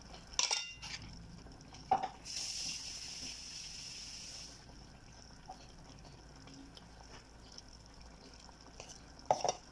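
Chicken stew in tomato sauce simmering in an open frying pan, bubbling softly. A brief hiss about two seconds in lasts a couple of seconds, and a few light clicks come and go.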